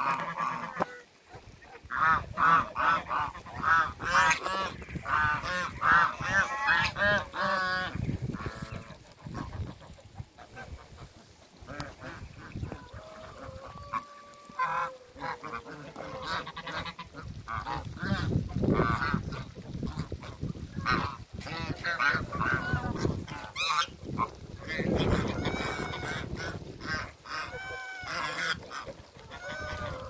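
A flock of domestic geese honking, with short repeated calls coming in quick runs, several birds calling over one another.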